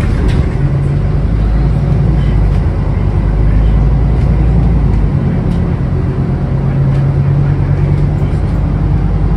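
Scania K360UA articulated bus's diesel engine running under way, heard from inside the rear section among road and rattle noise. The steady low engine drone strengthens about half a second in and again around six to eight seconds in.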